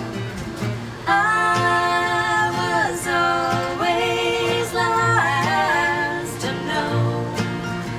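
Music: voices singing long held notes together in harmony, with little or no accompaniment.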